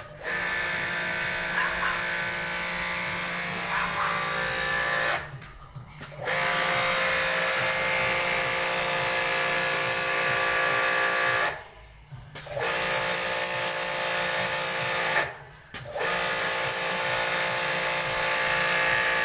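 Electric power tool motor running with an even whine and hiss, in four runs of three to five seconds, each stopping for about a second before starting again.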